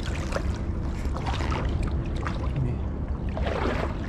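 Shallow river water sloshing and splashing close up, with many small trickling splashes over a steady low rumble. The splashing grows louder shortly before the end.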